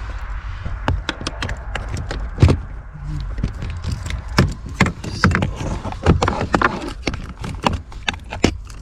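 Irregular sharp clicks and knocks of a small socket wrench against metal and plastic as it is worked onto the actuator's mounting bolts behind a car's dashboard, over a steady low hum.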